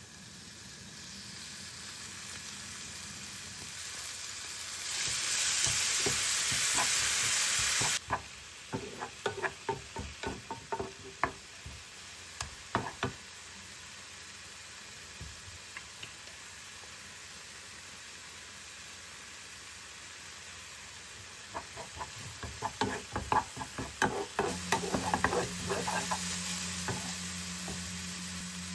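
Chopped kimchi and green onion frying in oil in a nonstick frying pan: a sizzle that swells loud for a few seconds about five seconds in, then settles to a steadier frying hiss. A wooden spatula stirring and tapping against the pan makes runs of quick clicks and scrapes, twice.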